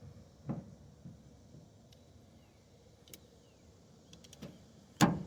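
Channel-lock pliers working on a metal hydraulic filter case: a few light clicks and knocks, then one sharp metallic clank about five seconds in.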